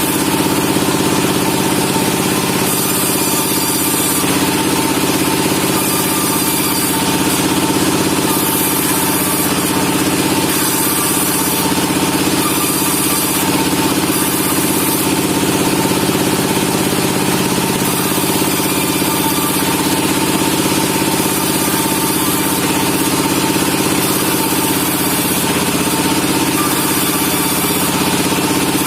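Sawmill machinery running with a steady, unchanging engine-like hum.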